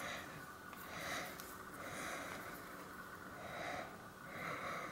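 A person breathing in and out through the nose close to the microphone, quietly, a breath roughly every second.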